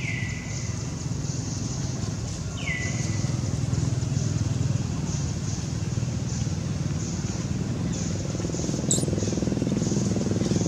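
A motor vehicle engine, likely a motorbike, running steadily close by and getting louder near the end. Two high calls falling in pitch come at the start and about three seconds in, and a short sharp chirp comes near the end.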